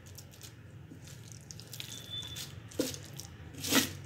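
Hand mixing coarsely ground moong dal vada batter in a bowl: soft wet squishing and clicking, with two louder squelches near the end.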